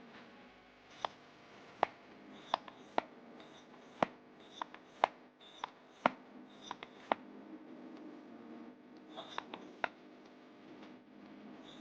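Irregular sharp clicks and taps, about fifteen, with a pause of a second or two about two-thirds of the way through, over a faint steady hum.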